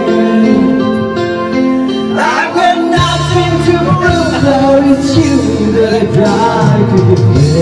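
Karaoke: a person sings into a microphone over a loud recorded backing track, the voice wavering and holding notes from about two seconds in.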